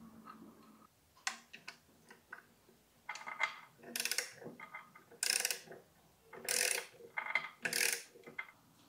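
A socket ratchet wrench clicking in repeated short bursts as the KTM Duke 390's crankshaft is turned by hand to bring it to top dead centre.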